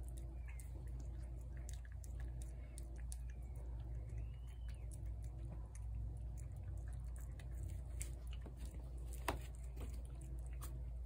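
A tabby cat eating wet cat food off a plate: soft, irregular chewing and smacking clicks, with one sharper click about nine seconds in, over a steady low hum.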